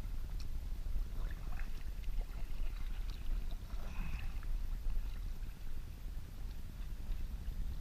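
Water sloshing and splashing around a kayak as it is paddled, over a steady low rumble of wind on the microphone. The splashes cluster in the first half.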